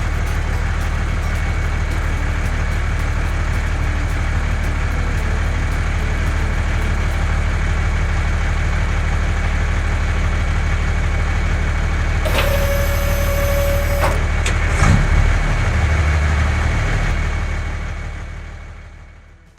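Heavy construction vehicle's engine idling with a steady low rumble. A short hissing tone sounds about two-thirds of the way in, the engine note shifts soon after, and then it fades away.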